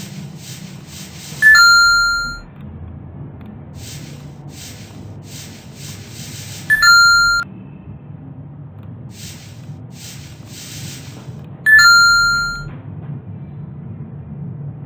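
IOE online quiz game's correct-answer chime, played three times about five seconds apart. Each is a two-note ding, a brief higher note stepping down to a lower one that rings out and fades over about a second.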